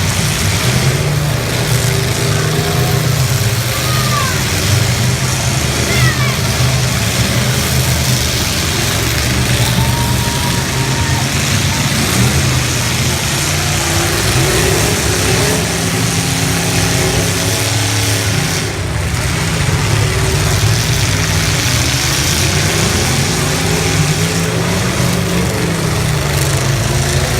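Several full-size stock cars' engines running and revving hard in a demolition derby, pitch rising and falling as the cars accelerate and back up, loud and continuous.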